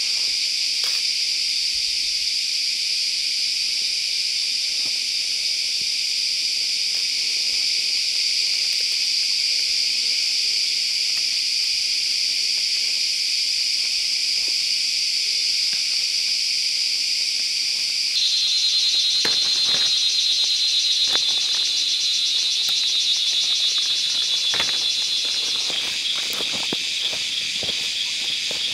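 Loud, steady chorus of forest insects, a high hiss that holds without a break; about 18 seconds in it shifts to a slightly lower, pulsing buzz. A few soft footsteps and leaf rustles come through in the second half.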